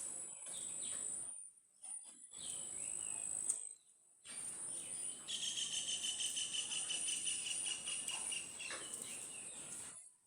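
Insects buzzing steadily at a high pitch. A rapid, evenly repeated trilling call joins in about five seconds in and stops near nine seconds. The sound cuts out briefly twice early on.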